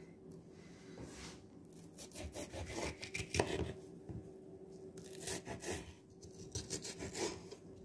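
Chef's knife slicing mini sweet peppers into strips on a bamboo cutting board: several runs of quick cuts and taps of the blade on the wood, with short pauses between.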